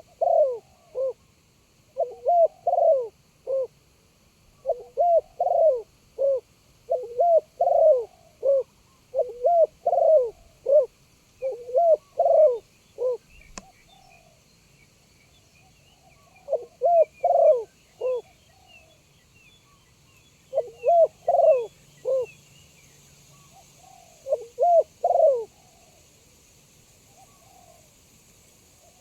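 Spotted dove cooing: phrases of several bouncing coos repeated every second or two, steadily through the first half, then in three shorter bouts after a pause. Faint chirps of small birds in the background and a single sharp click just before the pause.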